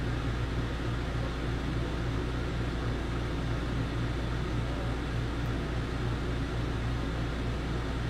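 12-volt air conditioner running at full blast with its fan on the top speed: a steady low hum under an even hiss, unchanging throughout.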